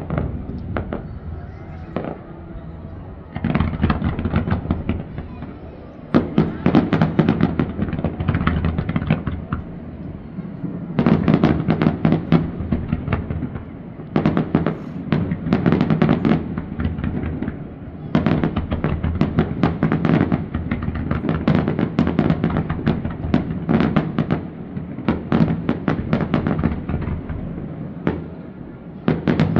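Aerial fireworks display: rapid volleys of bursts and crackling that come in dense waves a few seconds long, with short lulls between.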